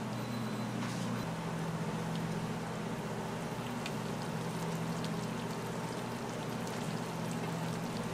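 A steady machine hum with an even crackling, rain-like hiss over it and a few faint clicks; the hum shifts pitch about a second in.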